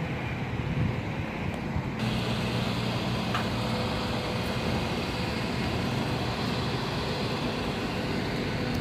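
Steady road traffic noise from passing cars, getting fuller about two seconds in.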